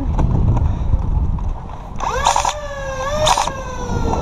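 A siren starts wailing about halfway through, its tone sliding slowly down in pitch. Under it are a low rumble and a few sharp knocks about a second apart.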